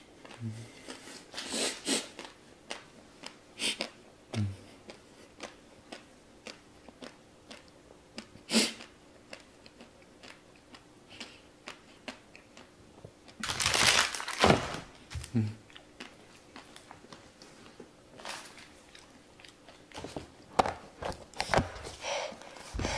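A man's mouth and breath as he endures the burn of the super-hot Paqui One Chip: scattered lip smacks and mouth clicks, a few short low hums, and puffs of air blown out through pursed lips, with one longer, louder blowing exhale about two-thirds of the way through.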